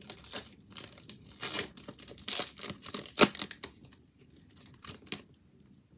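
Foil Pokémon booster-pack wrapper crinkling and tearing as it is pulled apart and the cards come out, in irregular crackles with one sharp, loud one about three seconds in. The crackling thins out after about four seconds to a few faint rustles.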